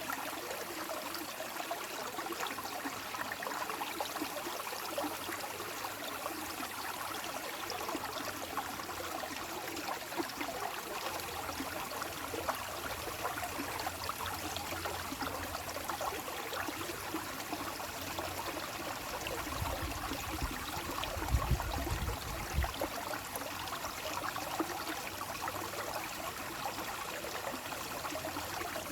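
Stream water running and babbling steadily, with a brief low rumble about two-thirds of the way through.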